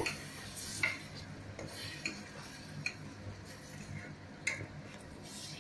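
A spoon stirring thick brinjal gravy in a stainless steel pot, with a few light clinks of the spoon against the side of the pot.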